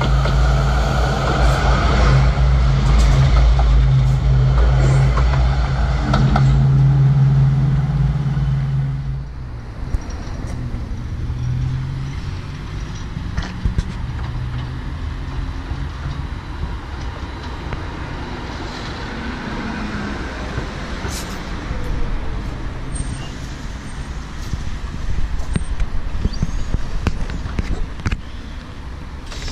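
Schindler Waggon Be 4/6 tram running past close by, with a loud steady motor hum for the first nine seconds or so. It then gives way suddenly to quieter city street traffic noise with occasional clicks.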